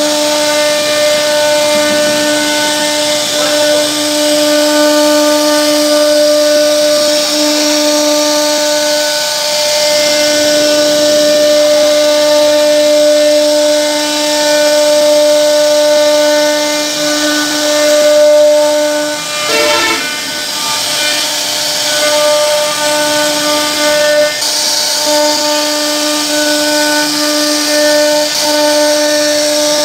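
CNC router spindle whining at a steady pitch while its bit cuts into a wooden door panel, with the hiss of the cut under it. There is a brief break in the whine about two-thirds of the way through.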